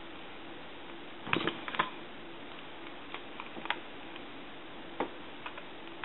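Light clicks and taps of small tools and parts being handled during soldering work on telephone wiring: a quick cluster a little over a second in, then a few single taps, over a steady faint hiss.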